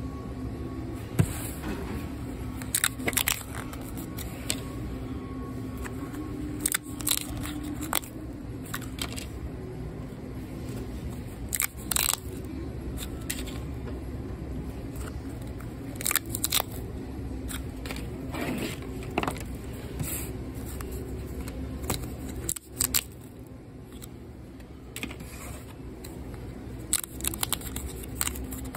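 Paper pull-tab tickets being handled and torn open: irregular sharp paper snaps and rustles over a steady low background hum.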